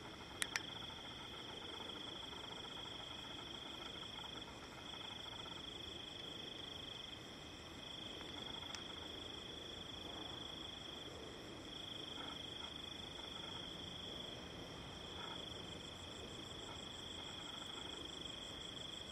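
Crickets chirring steadily in a high, continuous trill that dips briefly now and then, with a fainter, rapidly pulsing trill above it. A single brief click sounds about half a second in.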